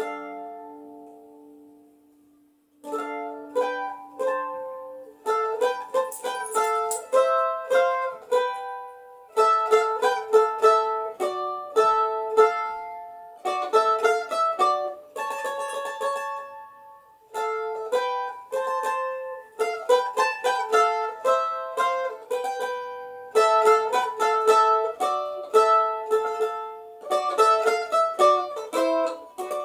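F-style mandolin played solo with a pick: a chord rings out and fades, then about three seconds in a melody of quick picked notes begins and runs on in short phrases with brief pauses.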